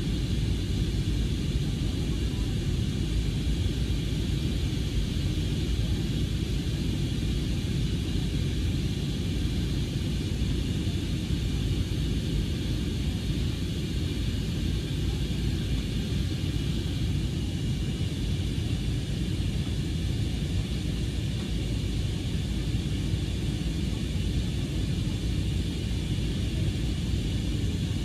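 Steady cabin noise of an Airbus A320neo (A320-271N): a deep, even rumble of engines and airflow with a thin, steady hiss above it, unchanging throughout.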